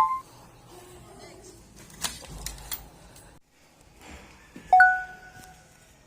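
A few sharp clicks, then a single bell-like ding about five seconds in that rings out for about a second.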